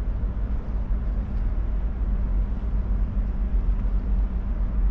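Wind buffeting the microphone: a heavy, fluttering low rumble, with a faint steady hum underneath.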